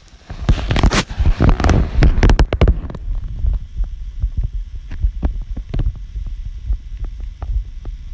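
A person's heartbeat picked up by a device held against the chest, heard as repeated low thumps. For the first few seconds a loud rustling, scraping noise covers it, then the thumps come through steadily.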